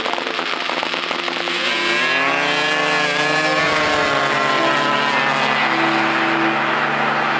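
Snowmobile engines at full throttle. One engine's pitch climbs over a second or two and then holds high, over a steadier lower engine drone.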